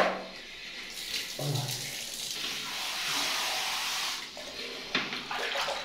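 Water running from a wall tap into a basin, starting about a second in and stopping a little after four seconds.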